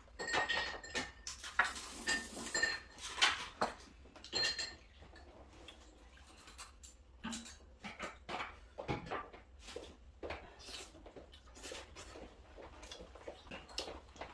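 Chopsticks and spoons clinking and scraping on ceramic plates and bowls during a meal, with chewing. The clicks come irregularly and are busiest in the first four seconds or so, where a dish rings briefly.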